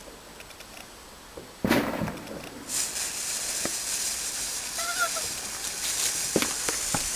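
A firework catching with a sudden rush about a second and a half in, then giving off a steady high hiss, with a few sharp crackles near the end.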